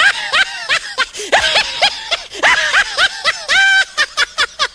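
A rapid run of short, high-pitched calls, each rising and falling in pitch, several a second, with one longer held call just before the end.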